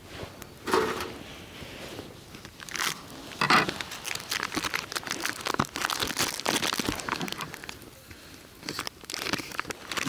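Plastic sausage wrapping crinkling and tearing as it is cut with scissors and peeled off, in irregular rustles and snaps.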